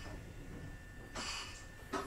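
Quiet interior of a Kotoden 1070 series electric train car standing at a station: a low steady rumble, with a short soft puff of hiss about a second in and a click near the end.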